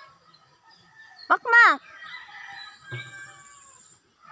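A rooster crowing faintly in the background, with a loud, short, falling cry about a second and a half in.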